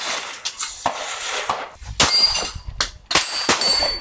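A string of gunshots at an outdoor shooting range, sharp, irregularly spaced cracks, with the loudest about two seconds in.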